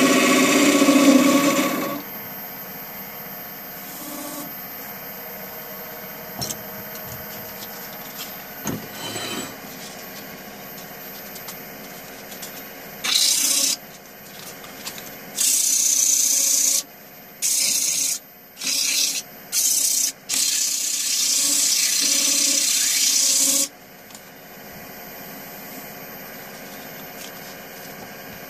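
Wood lathe spinning a bowl blank: a turning tool cuts the wood loudly for the first two seconds, then the lathe runs with a steady hum. From about halfway through come six loud hissing strokes of a sanding pad pressed against the spinning wood, the last one about three seconds long.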